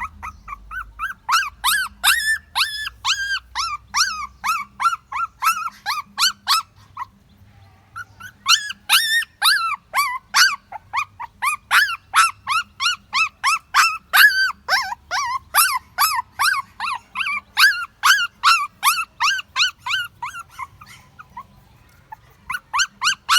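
Puppy crying in short, high-pitched whimpering yelps, about three a second, in long runs broken by two brief pauses.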